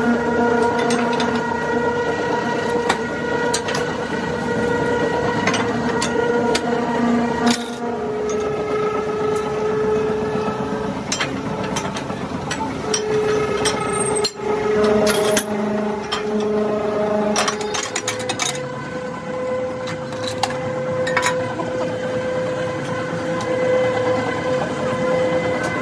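Metal clanks and knocks from a spanner working the swing-bolt clamps on the door of a vulcanizing autoclave used to cure rubber hoses. A steady droning tone runs underneath and shifts pitch a few times.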